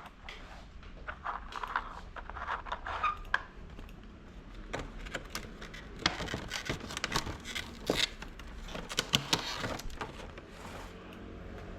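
Small plastic toy pieces being handled: irregular light clicks, taps and rattles, busiest in the second half.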